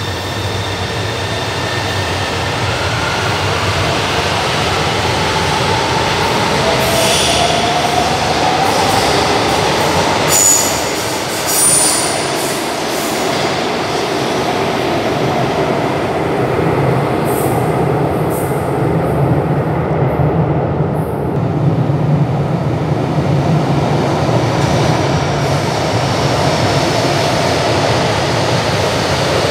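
São Paulo Metro trains at an underground platform: a train pulls out with its traction motors whining upward in pitch, with short high wheel squeals about ten to twelve seconds in. Then another train runs through the station with a steady low rumble and more brief squeals.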